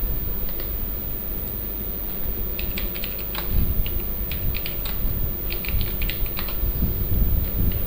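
Typing on a computer keyboard: a quick run of keystrokes in a few short bursts, starting a couple of seconds in, over a steady low background hum.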